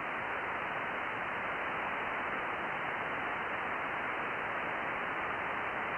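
Steady, even hiss of a shortwave receiver's audio on a weak, unmodulated SSB signal: band noise with no voice on it.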